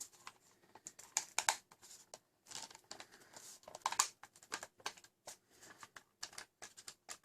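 Irregular sharp plastic clicks and taps from a partly assembled ZWQ S200s Viper foam-dart blaster being handled, its newly fitted trigger being worked.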